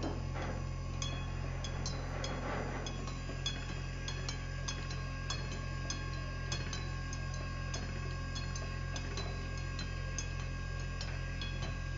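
Sound installation playing short, high-pitched pings about twice a second at uneven spacing, each ringing briefly, over a steady low hum.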